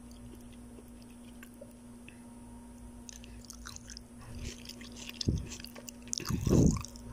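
A person chewing on chicken feet stewed in spiced red soup: small wet mouth clicks and smacks that start about halfway through and grow busier toward the end. A faint low hum runs underneath.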